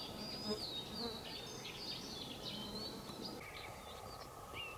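Songbirds singing, a busy run of high whistled phrases and warbles, over a steady low buzz of flying insects.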